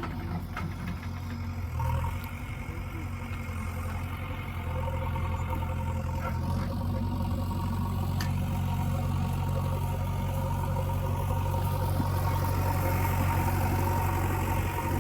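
Diesel engine of a backhoe loader or tractor running steadily at low revs, a little louder from about four and a half seconds in.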